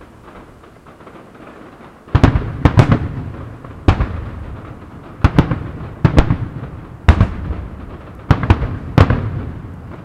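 A fireworks display: aerial shells bursting in a run of loud, sharp bangs, often two or three in quick succession, each trailing off in a rumbling echo. The bangs begin about two seconds in, after a quieter stretch of background noise.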